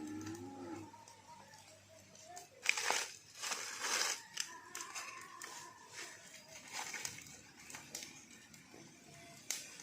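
A cow's moo trailing off in the first second, then a run of irregular crinkling and crackling rustles, the loudest about three and four seconds in.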